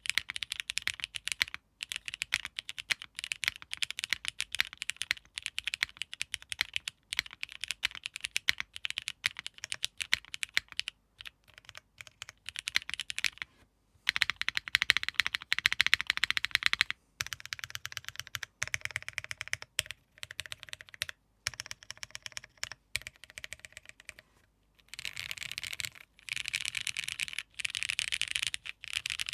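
Typing on an Arc60 60% mechanical keyboard with lubed, filmed, spring-swapped Cherry MX switches soldered without a plate. Steady keystrokes with short pauses, and quicker runs of typing about halfway through and near the end.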